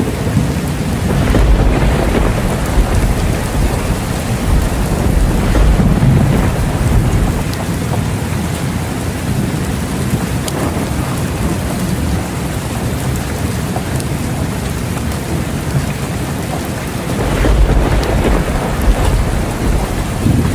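Steady rain pouring, with thunder rumbling low under it. The rumble swells about a second in, again around six seconds, and more strongly near the end.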